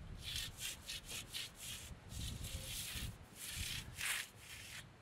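Steel concrete-finishing tools, an edger and then a hand trowel, scraping over fresh wet concrete. It comes as a quick run of short rubbing strokes in the first couple of seconds, then a few longer, slower strokes.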